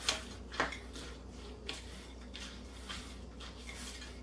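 A red-handled utensil stirring chicken salad with mayonnaise in a glass mixing bowl: a soft, wet squishing with two sharp knocks of the utensil against the glass near the start and a lighter one a little later.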